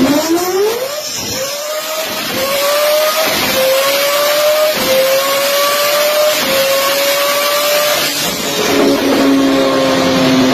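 Highly tuned Mazda RX-7 engine, rated at about 1200 bhp, running flat out on a chassis dyno. Its pitch climbs in a series of steps, dipping briefly between them as it shifts up through the gears. About eight seconds in it backs off to a steadier, lower note, then starts to rise again near the end.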